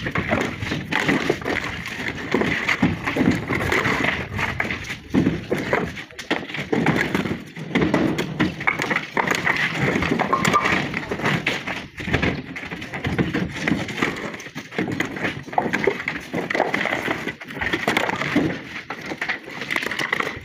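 Flat natural stone slabs clattering and knocking against each other as they are lifted off a stack and thrown down onto a pile, in irregular knocks throughout.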